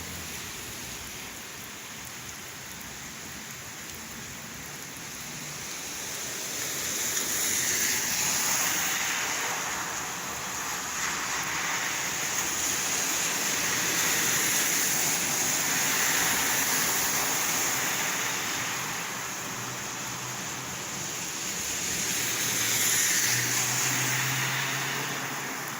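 Steady rain falling, with a rushing hiss that swells and fades three times.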